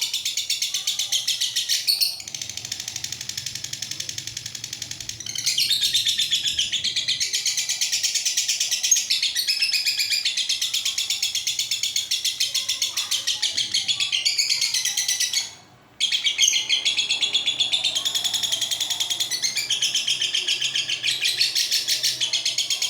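Lovebird doing its long 'ngekek' song: an unbroken run of very fast, shrill chattering chirps. It softens for a few seconds near the start and breaks off once, briefly, about fifteen seconds in, then resumes.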